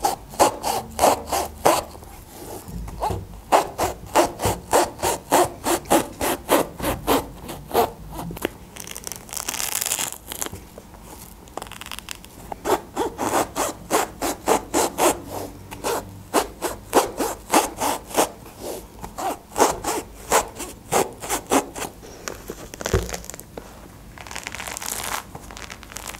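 A small kitchen knife sawing through the thick rind of a pomelo: quick rasping strokes, a few each second, in runs with short pauses. Near the end the scored peel is pulled apart by hand.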